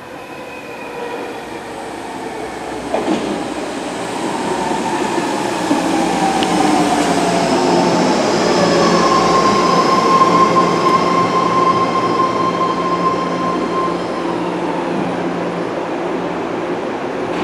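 BART train led by an Alstom-built C1 car pulling into a station platform, growing louder as it comes alongside. Its whine slides down in pitch as it slows, with a steady high squeal through the middle and a single click about three seconds in.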